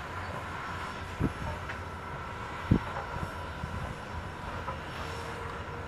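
Soo Line 4-6-2 Pacific steam locomotive No. 2719 passing slowly with a steady rumble and hiss. Two low thumps come about a second and a half apart, the second one louder.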